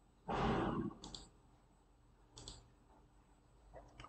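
Computer mouse clicks, a few faint sharp clicks spaced a second or more apart, after a short loud rush of breath-like noise near the start.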